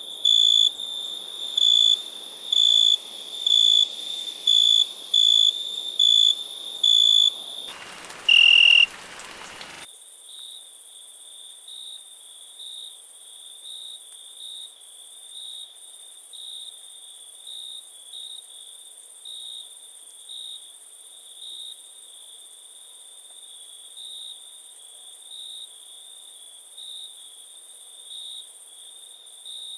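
Crickets chirping in an even rhythm, roughly one chirp a second, loud at first. Around eight seconds in there is a brief louder, noisier sound. The chirping then carries on more faintly over a steady high hiss.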